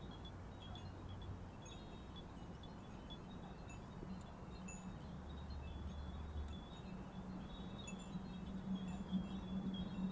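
Many small Japanese iron wind bells on thin metal rods tinkling in a light breeze: scattered, overlapping high pings. Underneath runs a low steady rumble that grows louder near the end.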